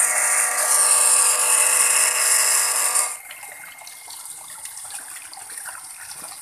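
Sanyo water pump motor running loud and rough, a steady whine of many tones with a hiss over it: the sound of worn, damaged bearings. About three seconds in it cuts to the same pump running much more quietly, fitted with new bearings, with water gushing out.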